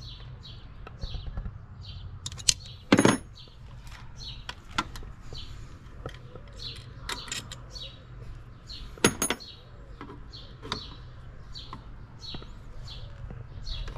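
Two sharp metallic clinks of hand tools on the turbo blow-off valve's bolts and fittings in the engine bay, about three seconds in and again about nine seconds in, the loudest sounds here. Underneath, a bird chirps over and over, about twice a second.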